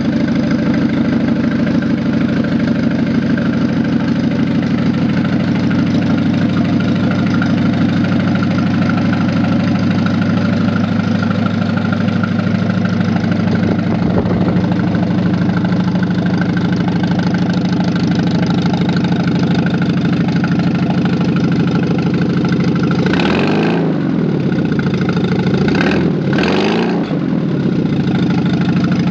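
GAZ M-21 inline four-cylinder engine, bored to 88 mm, idling steadily. Near the end its pitch swings briefly twice.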